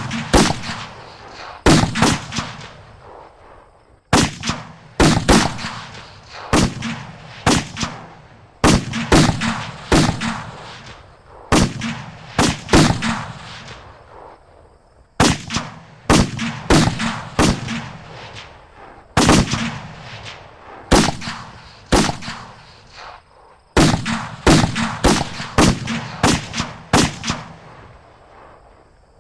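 Battle gunfire sound effect: irregular volleys of rifle and musket shots, several shots in quick succession and then short lulls, each shot echoing into a low rumble.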